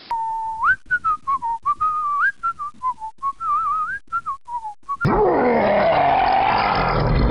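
A person whistling a wandering tune, one pure note after another with small slides between them, for about five seconds. Then a sudden loud, rough roar with a falling pitch takes over.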